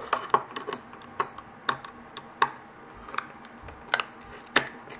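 Sharp, irregular clicks and taps, about a dozen, of a flat blade working around the edge of a 1.8-inch hard drive's top cover to pry it loose.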